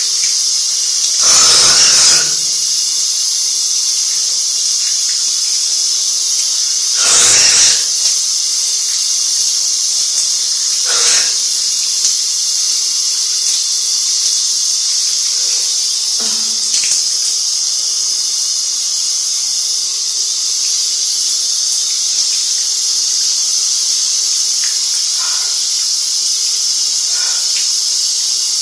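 Shower spray hissing steadily, broken by two loud sneezes from a head cold, the first about a second in and the second about seven seconds in, and a softer one about eleven seconds in.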